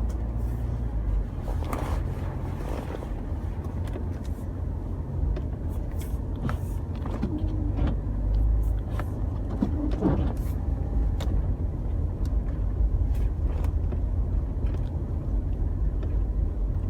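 Car driving on a snowy road, heard from inside the cabin: a steady low rumble of engine and tyres, with scattered light clicks and knocks.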